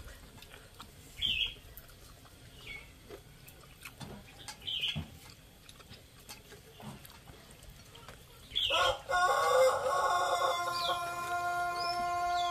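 Chickens clucking with a few short, high calls in the first half, then about nine seconds in a loud, long sound of several steady tones sets in and holds.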